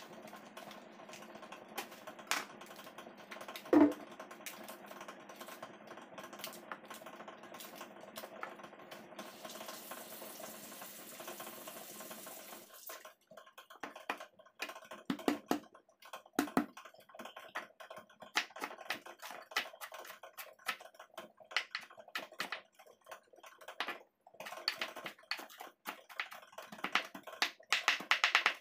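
Kitchen knife chopping garlic on a cutting board: quick, irregular taps of the blade on the board that start about halfway through and grow denser near the end. Before that there is a steady background hum with a few knocks, one of them loud about four seconds in.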